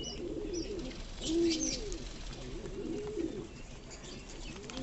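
Fantail pigeons cooing over and over, low calls that rise and fall, with a few faint ticks.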